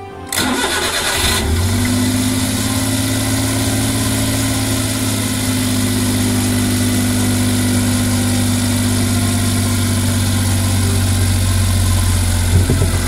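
Suzuki Every DA62V van's 660 cc three-cylinder engine cranked by the starter for about a second, catching on a cold start and settling into a steady idle. A couple of small knocks come near the end.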